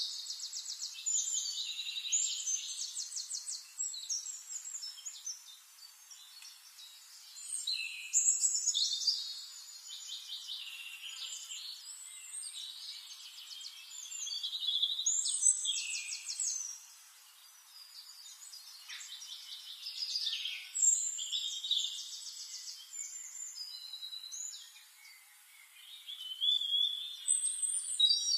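Birds singing: high-pitched phrases of chirps and rapid trills that come back every several seconds, with quieter gaps between.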